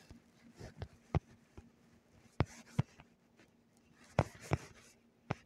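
Finger or stylus tapping and stroking on a phone's touchscreen while drawing, picked up by the phone's own microphone: a handful of sharp, irregular taps over a faint steady hum.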